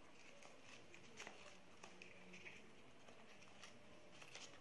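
Faint crinkling and rustling of origami paper being creased and pressed by hand, with a few soft crackles over quiet room tone.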